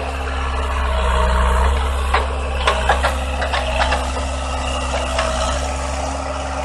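A heavy vehicle engine running steadily, with a quick run of sharp knocks about two to four seconds in.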